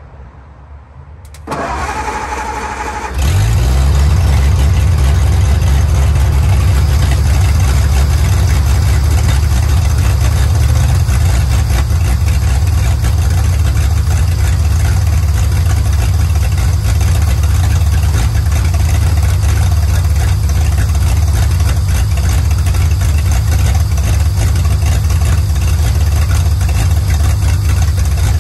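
1935 International C-30 truck engine being started: the starter cranks for about a second and a half, the engine catches about three seconds in and then runs steadily.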